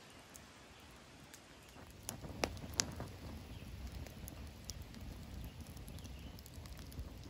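Smouldering wood fire in a metal fire pit crackling with irregular sharp pops, a few loud ones just after two seconds in, over a low rumble.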